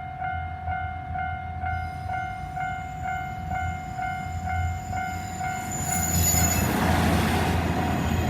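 Japanese level-crossing alarm ringing in a steady pulse of about two and a half strikes a second. From about six seconds in, a local diesel railcar passes over the crossing, its running noise rising and drowning out the alarm.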